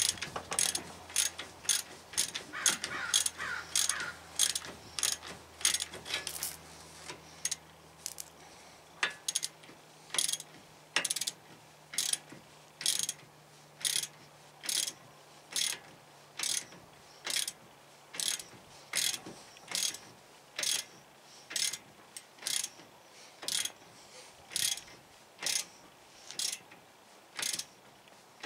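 Ratchet wrench clicking as it turns a stud installer nut, drawing a new wheel stud into the hub. The clicks come quickly for the first several seconds, then settle to a steady click about once a second as the stud creeps in.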